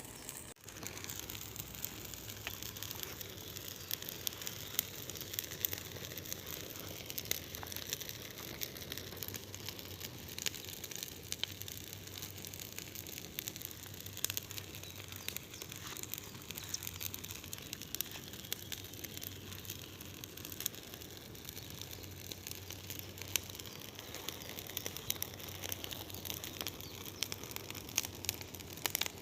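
Large bonfire burning, a steady rush of flame with dense, irregular crackling and popping of burning wood.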